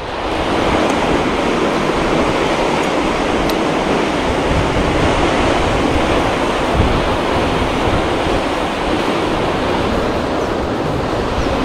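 Steady rush of turbulent water pouring from under a bridge into a concrete channel, with wind rumbling on the microphone.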